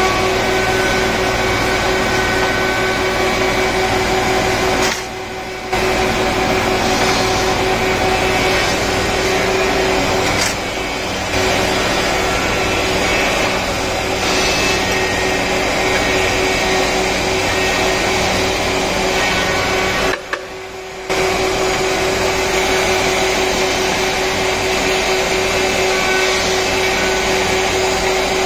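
Four-sided wood planer (moulder) running, a loud steady machine din with a constant hum-like tone through it. The noise drops away briefly three times.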